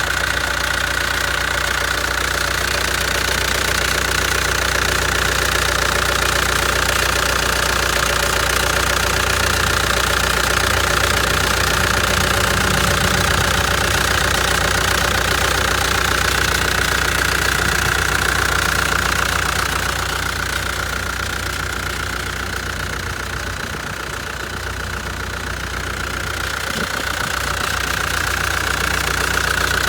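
Caterpillar 267 multi-terrain loader's diesel engine running steadily, with a steady whine above the engine note. The sound drops for a few seconds past the middle, then comes back up.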